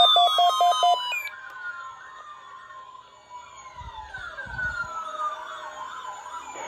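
Electronic alert tones: a rapidly pulsing tone that cuts off about a second in, then quieter siren-like sweeps falling in pitch, repeating over a faint steady tone.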